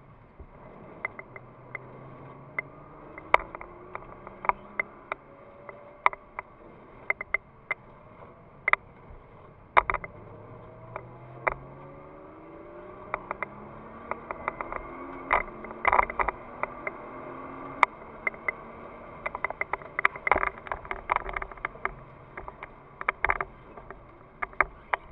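Nissan GT-R's twin-turbo V6, heard from inside the cabin, pulling hard: its pitch climbs, drops back and climbs again several times. Many sharp, irregular clicks and taps sound over it, the loudest a little past the middle.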